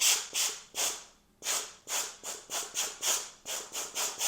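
Compressed air from an air compressor's blow gun fired in short blasts at a mini-split filter to blow the dust off it: a string of sharp hissing puffs, a short pause about a second in, then quicker puffs of about three a second.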